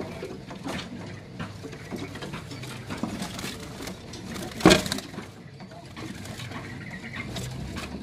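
Caged songbirds chirping faintly among scattered light taps and rustles, with one sharp knock a little past halfway.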